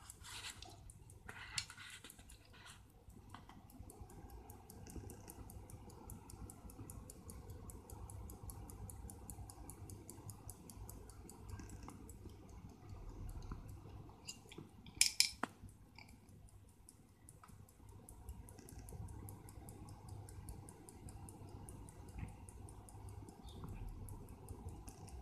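Vertex 15-jewel Swiss pocket watch ticking, a fast, even run of faint ticks. Metallic clicks and knocks of the steel case being handled cut in, the sharpest about fifteen seconds in.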